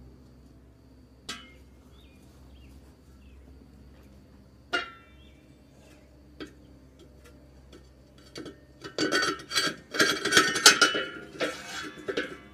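Steel disc-harrow blades clanking against the gang shaft and each other as they are stacked: two single ringing clanks in the first five seconds, then a run of rapid metallic clatter and ringing about nine seconds in as a blade is worked down the shaft onto the stack.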